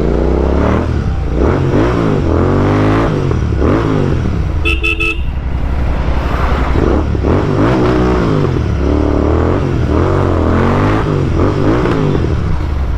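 Royal Enfield Continental GT 650's parallel-twin engine, breathing through an aftermarket Red Rooster performance exhaust, repeatedly revving up and falling back while the bike is ridden. A vehicle horn honks briefly about five seconds in.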